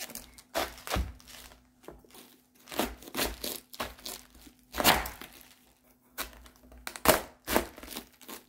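Kitchen knife cutting through a raw green cabbage on a cutting board: a series of crisp crunching cracks as the blade splits the dense leaves, the head splitting with a pop like a ripe watermelon.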